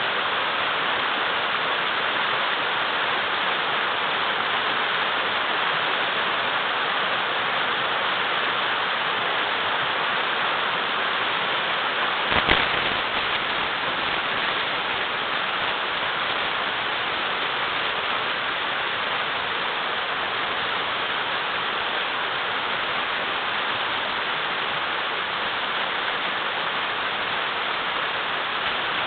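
Mountain river rushing and splashing over large boulders: a steady, full rush of water. A single brief knock sounds near the middle.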